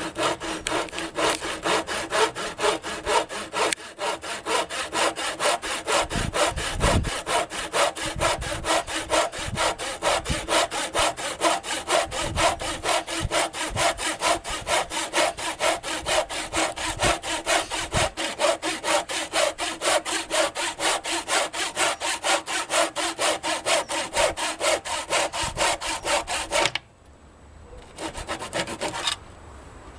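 Tenon saw cutting through a solid rubber ladder foot in rapid, even back-and-forth strokes. The sawing stops suddenly near the end.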